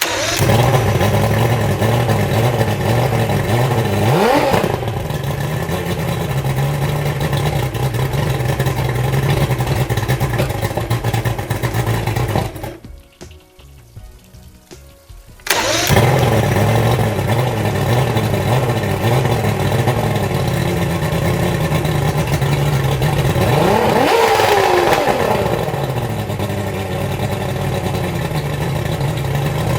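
Johnson 150 V6 two-stroke outboard engine starting and running, with the throttle opened briefly about four seconds in. It dies about twelve seconds in, is started again a few seconds later and revved again later on: with its quick-start circuit grounded out, the engine will not stay running.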